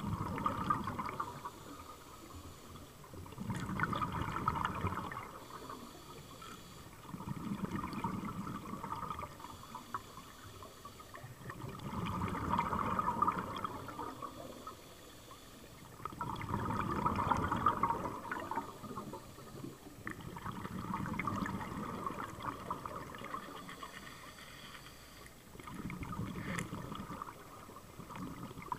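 A scuba diver breathing through a regulator underwater: rushing bursts of exhaled bubbles that come back about every four seconds.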